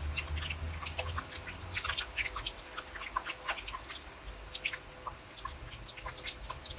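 Eggplant frying in plenty of hot oil, the oil crackling and popping in quick, irregular spatters.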